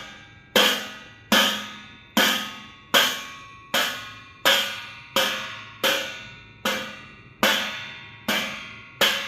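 Steel thali plate struck with a spoon about a dozen times at a steady pace, roughly one strike every 0.8 seconds. Each hit rings out with a bright metallic tone that fades before the next.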